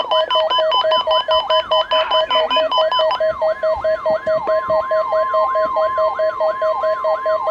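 Several NOAA Weather Radio receivers alarming together for the weekly test. Under it all is the steady 1050 Hz warning alarm tone. Over it run a siren-like rising warble, about three sweeps a second, and a rapid beeping, whose harsher upper part drops out about three seconds in.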